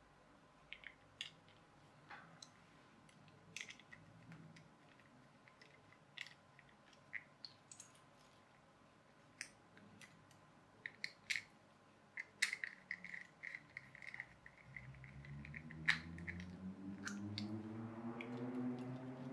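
Small clicks and taps of a screwdriver and plastic parts as screws are driven into a clear plastic clockwork toy car chassis. Over the last few seconds a low hum comes in and rises steadily in pitch.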